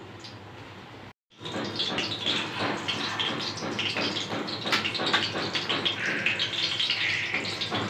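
Breadcrumb-coated chicken kababs on wooden skewers sizzling in a pan of hot oil: a steady, dense crackle. It begins after a faint first second and a brief drop-out.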